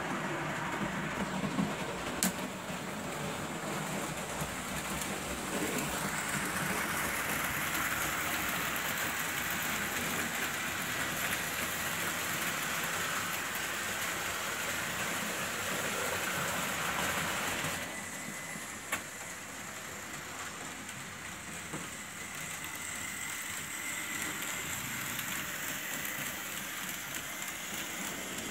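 Märklin H0 model train with an SBB Krokodil locomotive running on the layout: a steady rushing noise of wheels rolling on the metal track, with a sharp click or two. About two thirds of the way through the noise drops noticeably and a faint, steady high motor whine stands out.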